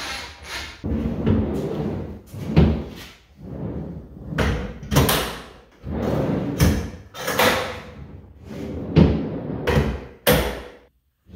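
Large plywood drawers pulled open and pushed shut on bearing-roller tracks, several times over: each stroke a rolling slide that ends in a thud as the drawer stops or closes, with clacks from the metal paddle latches.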